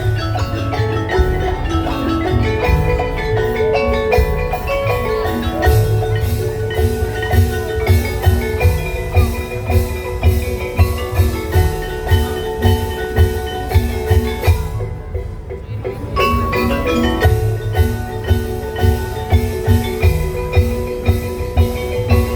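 Tongklek ensemble music: a quick melody on tuned bamboo mallet percussion over a steady drum beat, with a brief break in the high notes about fifteen seconds in.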